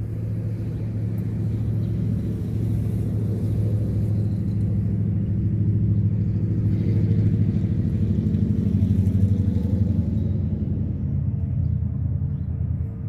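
A motor vehicle's engine running, growing louder over the first several seconds and easing off near the end, as when a vehicle passes close by.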